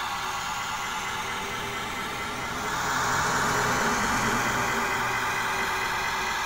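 Steady motor running noise of a 1:87-scale RC garbage truck driving, a hiss with a few steady tones over it; it grows louder and changes character about two and a half seconds in.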